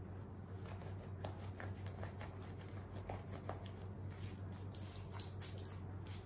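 Hands squeezing and rubbing a soaked sweatshirt, giving a run of small wet squelches and fabric rustles, with a quick cluster of sharper crackling sounds about five seconds in. A steady low hum runs underneath.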